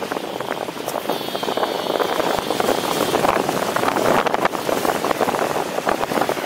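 Wind rushing and buffeting on the microphone of a paramotor gliding with its engine cut. A faint, high, wavering whistle comes in about a second in and lasts a couple of seconds.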